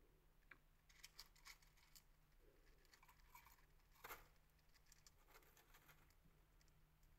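Faint crunching clicks of a pet fancy mouse eating dry seed mix from its bowl: a cluster of small ticks about a second in, a sharper click around four seconds, and lighter ones after.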